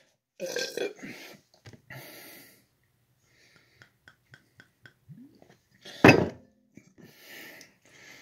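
A man burps loudly once, about six seconds in, with a shorter burp-like throat sound near the start. Between them come faint small ticks while Baileys Irish cream is poured from its bottle.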